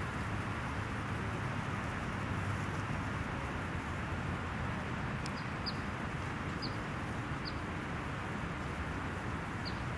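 Steady outdoor rumble and hiss, with a small bird giving a few short, high chirps from about halfway through.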